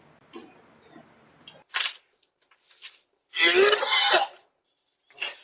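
A person coughing and clearing their throat: a short burst about two seconds in, a louder, longer one of about a second about three and a half seconds in, and a short one near the end.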